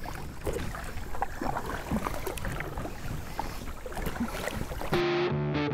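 Kayak paddle strokes and small splashes of river water against the hull, with light wind on the microphone. Electric guitar music cuts in suddenly near the end.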